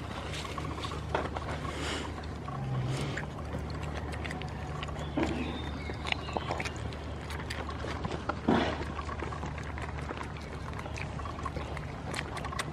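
Goats biting and chewing a ripe tomato held out by hand, close up: wet munching with scattered clicks and a louder short noise about eight and a half seconds in, over a steady low hum.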